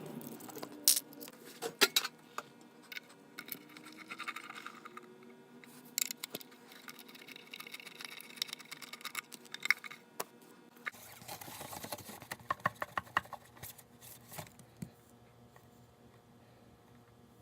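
Scattered clicks, taps and light scrapes of small parts and a mandolin being handled on a workbench. A faint steady low hum comes in about eleven seconds in.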